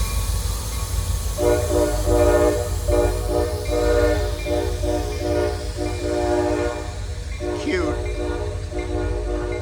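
CSX diesel locomotive's air horn sounding a chord in a rhythmic run of short and long blasts, over the low rumble of the train rolling past.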